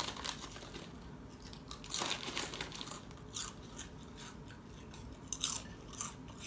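Close-up eating sounds of a crisp snack topped with tuna salad being bitten and chewed: irregular crunches, strongest near the start and about two seconds in, with softer chewing between.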